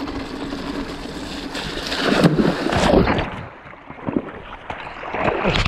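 A mountain bike and its rider splashing through a stream and going down into it: heavy splashing and churning water, the sound turning suddenly muffled about three seconds in, with further splashes near the end.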